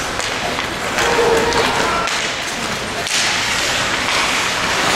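Ice hockey play: thuds and taps of sticks, puck and boards over steady rink noise, with sharp knocks about a second in and again about three seconds in.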